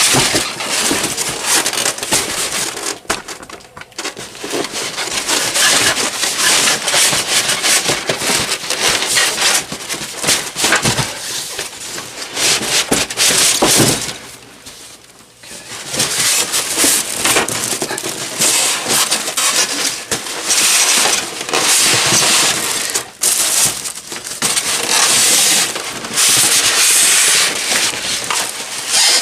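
Styrofoam packing and a cardboard box rubbing and scraping against each other as a heavy ceiling fan is dragged out of the box, with a brief lull about halfway through.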